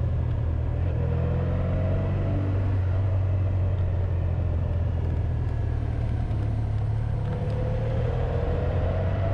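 Honda VFR1200X Crosstourer's V4 engine running steadily under way, with wind rush on the windshield-mounted camera. A faint rising whine comes in twice, about a second in and again near the end.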